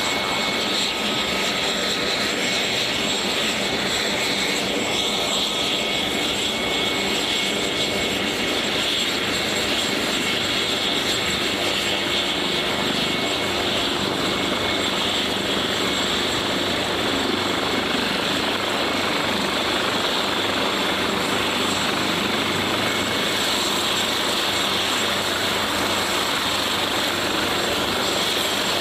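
MH-139A Grey Wolf twin-turboshaft helicopter running on the ground with its rotors turning. It makes a steady, unbroken rotor and engine noise with a high, steady turbine whine.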